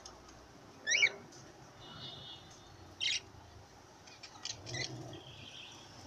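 Caged cockatiels calling: a loud warbling chirp about a second in, a short sharp call near three seconds, and a few quieter chirps near the end.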